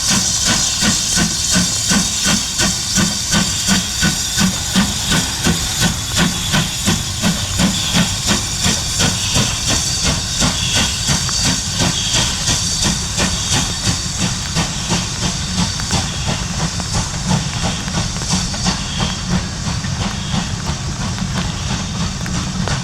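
Steam locomotive running: a steady, regular rhythm of exhaust beats over continuous steam hiss, growing a little fainter near the end.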